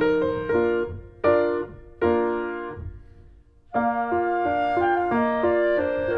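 Piano music: chords struck and left to ring out. The playing dies down to a brief lull a little past halfway, then starts again.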